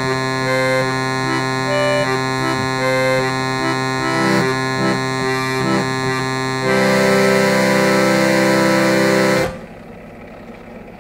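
Harmonium playing long sustained chords under a slow melody, growing louder about two-thirds of the way through, then cutting off abruptly near the end.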